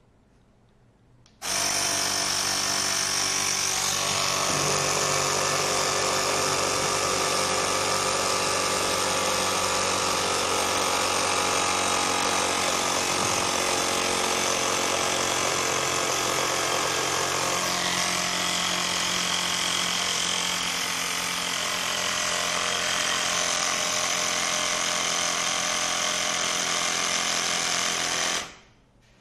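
A small motorised machine running steadily and loudly, like a power tool or pump. It starts suddenly about a second and a half in, changes tone a little about two-thirds of the way through, and stops shortly before the end.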